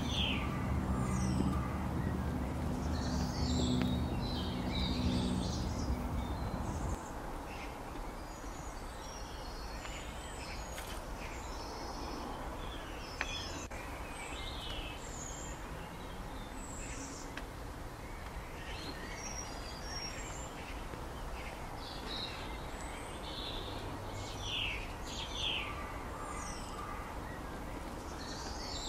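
Wild birds chirping and calling in short, scattered notes over a steady outdoor hiss. A low steady hum runs underneath for the first seven seconds and then cuts off abruptly.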